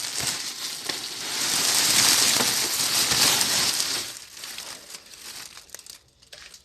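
Plastic bag rustling and crinkling as the celery is handled, loud for about four seconds, then dying down to a few soft crackles.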